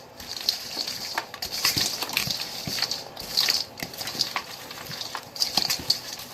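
Salad leaves being tossed with creamy Caesar dressing in a bowl: irregular crisp, wet crunching and rustling.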